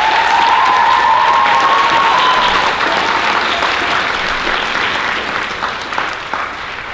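Audience applause, a dense clapping that swells in at once and slowly tapers off toward the end, with one high held tone standing out above it for the first two seconds or so.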